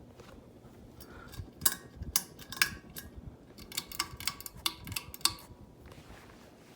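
Lasko American Classic ceiling fan running, its pull chain clicking irregularly: a string of sharp metallic clicks from about a second in until near the end.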